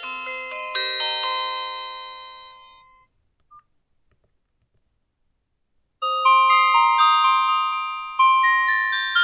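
Nokia 5310 feature phone playing its default ringtones through its speaker: a melody of quick notes rings out and stops about three seconds in, a short beep sounds in the gap, and about six seconds in a different ringtone melody starts.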